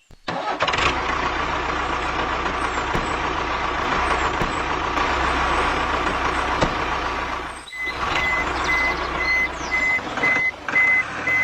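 A steady mechanical running noise, then after a short break a vehicle reversing alarm sounds a series of evenly spaced high beeps, about two a second.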